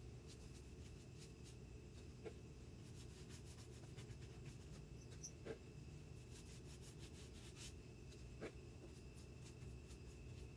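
Faint scratchy strokes of a paintbrush laying chalk paint onto a wooden dresser, with a few light ticks scattered through.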